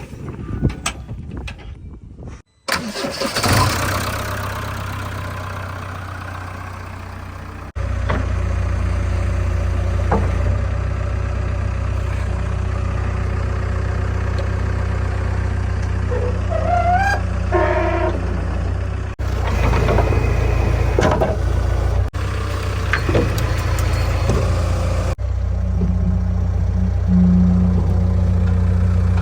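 Heavy-machinery diesel engine running steadily, with abrupt jumps in level where clips are cut together. A brief rising whine sounds a little past halfway.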